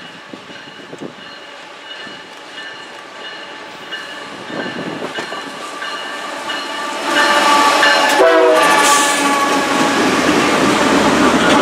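Air horn of a CSX GE ES44AC diesel locomotive sounding a chord as it approaches at the head of a freight train, growing louder. About seven seconds in, the engines and the rumble of the lead locomotives passing close by rise sharply.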